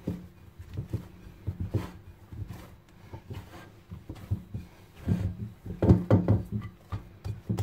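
Hands kneading msemen dough in a basin: irregular dull thumps and knocks as the dough is pressed and pushed against the bowl, with some rubbing. The thumps come louder and closer together in the last couple of seconds.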